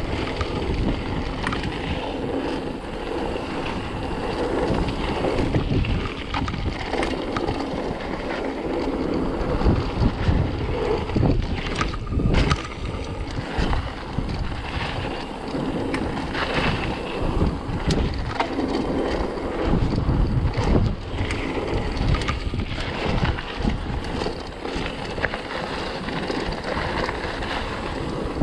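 Wind rushing over the microphone, with the rumble of a mountain bike ridden down a rough trail and irregular knocks and clatter from the bike.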